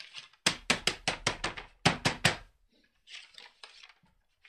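Sandpaper rubbed briskly over a pounced paper pattern to open the pounce holes for the chalk: a quick run of about ten sharp scrapes in two seconds, then a few softer rubs.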